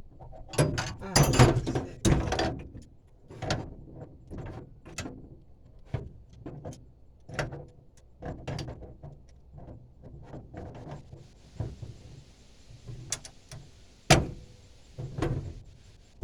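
Irregular metal clanks, clicks and knocks of wrenches and brass propane fittings being handled and worked, densest in the first couple of seconds, with a sharp knock about fourteen seconds in.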